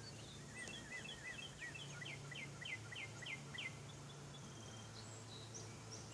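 A songbird singing a run of short arched notes that turns into a string of quick downward-sliding notes, about three a second, stopping a little under four seconds in; a few fainter chirps follow. A steady low hum runs underneath.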